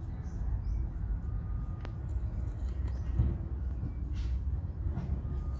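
Steady low rumble of wind buffeting the microphone, with a few soft handling sounds as small clay bricks are set into wet cement: a sharp click about two seconds in, a dull thump a little later and a brief scrape near the end.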